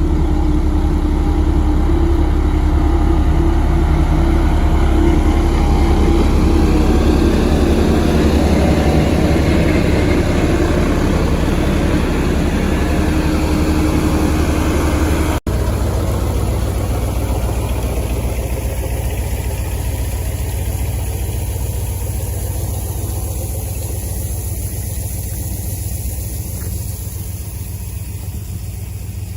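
Engine of road construction machinery running steadily. It cuts out for an instant about halfway, then carries on and slowly fades.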